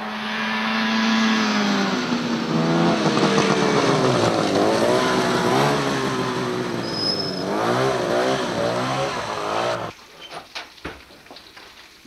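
Vintage Arctic Cat snowmobile's two-stroke engine revving up and down as the sled rides past, its pitch rising and falling several times. It stops abruptly near the end, leaving a few faint clicks and taps.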